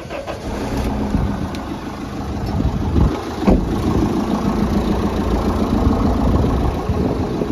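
Fiat Ducato van's diesel engine idling steadily, running to drive the refrigeration unit, with a single short knock about three and a half seconds in.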